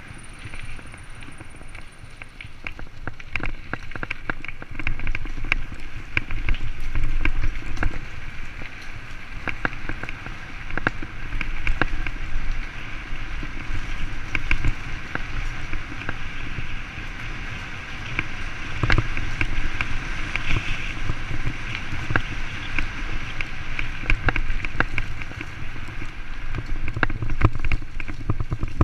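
Mountain bike riding noise picked up by the rider's camera: a low rumble of wind on the microphone and tyres rolling over tarmac and gravel, with frequent clicks and rattles from the bike over the bumps.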